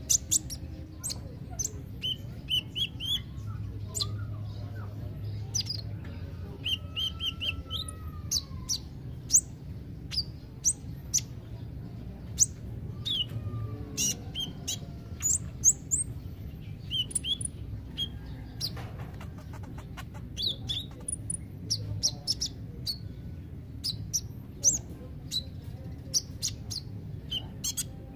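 Male Van Hasselt's sunbird (kolibri ninja) singing: a rapid, irregular run of sharp high chirps and short falling notes, broken by quick little trills, over a low steady background hum.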